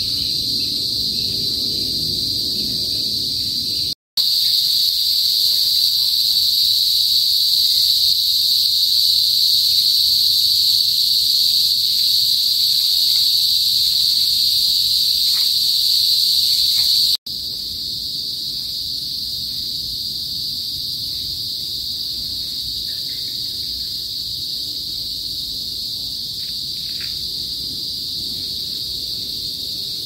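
Chorus of Philippine cicadas (kuliglig) giving a loud, steady, high-pitched drone. It cuts out briefly twice, about four seconds in and again around seventeen seconds. It comes back louder after the first break and softer after the second.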